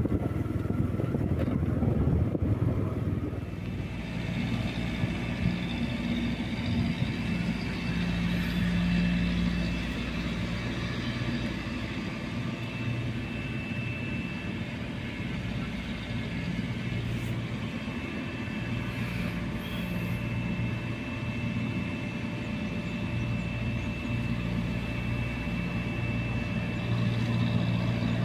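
An engine idling steadily, a low, even hum with a faint high whine over it; wind buffets the microphone in the first few seconds.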